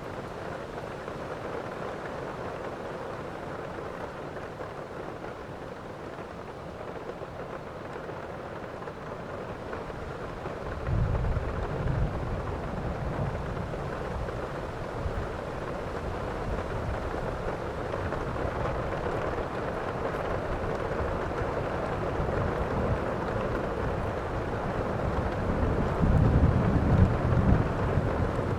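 Steady rain falling in a thunderstorm. Low rolls of thunder come in about a third of the way through, and a louder rumble near the end.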